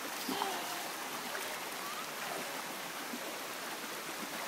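Shallow rocky stream rushing over stones and small cascades: a steady, even wash of running water.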